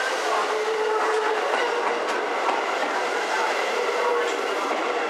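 Seibu 9000-series electric train pulling into the station, its wheels clacking over the rail joints with a steady whine held over the running noise.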